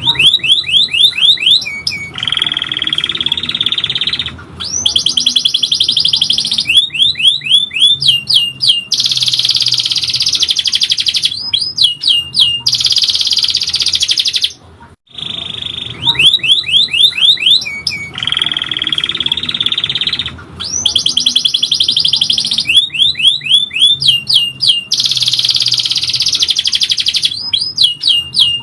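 Domestic canary singing a long, loud song of rapid trills and sustained high rolls. The same song passage plays twice in a row, with a brief break about halfway through: a looped training recording.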